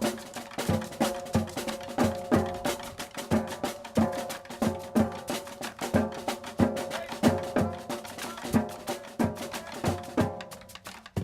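A marching drumline playing a fast, steady rhythm of snare and drum strokes, several hits a second, getting softer near the end.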